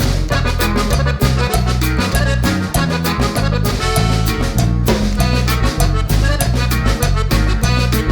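Upbeat background music with a steady beat, bass and percussion in a Latin, salsa-like style.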